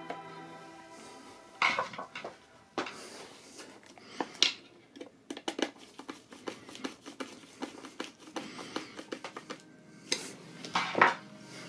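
Irregular clicks and clatters of small hard objects being handled, tools and parts set down and picked up during an iMac repair, over background music. The louder clatters come about two seconds in, around four and a half seconds, and near the end.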